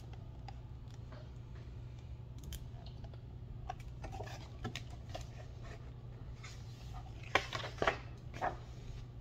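Pages of a large picture book being handled and turned, soft paper rustles and small clicks, then a few crisp paper swishes near the end. A steady low hum runs underneath.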